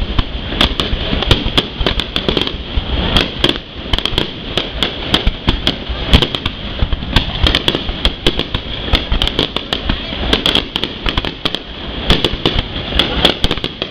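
Fireworks bursting in a dense, irregular barrage of sharp bangs, several a second, with no letup.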